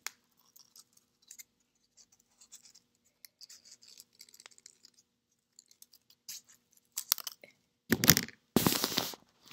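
Scissors making small, soft, scattered snips as they cut a little half circle out of a folded piece of paper. Near the end come a few louder, brief bursts of paper and handling noise.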